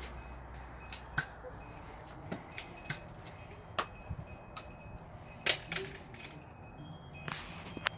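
Nerf blasters being fired during play: scattered sharp clicks and snaps at irregular intervals, about ten in all, the loudest about five and a half seconds in.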